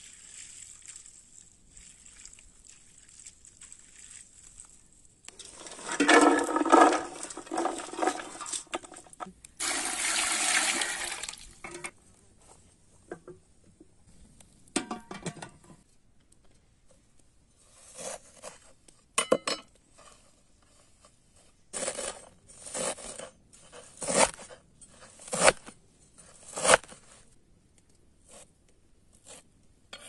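Water splashing in a steel bowl as chopped green beans are rinsed with water poured from a jug, followed by a second steady rush of pouring water. Later a knife chops dill on a wooden cutting board in separate knocks, roughly one a second.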